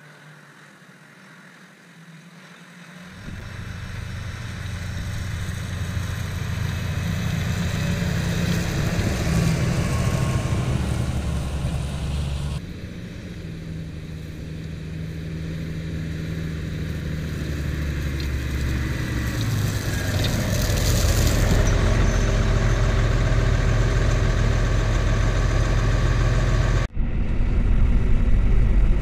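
Claas Axion tractor engine working in the field while discing, growing steadily louder as it comes closer. Near the end the same engine runs steadily from inside the cab while driving on the road.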